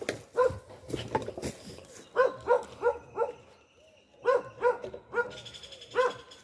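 A dog barking repeatedly, in short runs of two to four barks with brief pauses between the runs.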